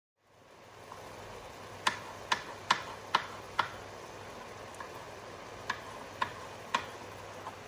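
Chopped mushrooms frying in a wide non-stick pan: a steady sizzle with about ten sharp pops of spitting fat, the loudest five close together a couple of seconds in.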